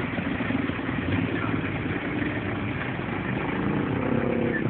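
Vehicle engine running steadily in traffic, heard from inside a vehicle; the hum grows a little stronger near the end.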